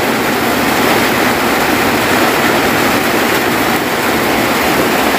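Heavy rain falling steadily on a corrugated roof and the surrounding vegetation, an even, unbroken hiss.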